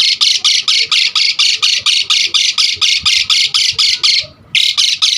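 Jalak suren (pied starling) calling in a fast, even run of harsh, rasping notes, about six a second. The run breaks off briefly about four seconds in, then resumes for a few more notes.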